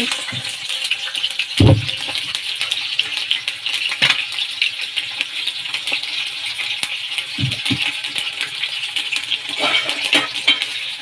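Fish pieces sizzling in hot ghee on a tawa griddle: a steady, dense crackle of spattering fat, with a few low thumps at about two seconds and again at seven and a half.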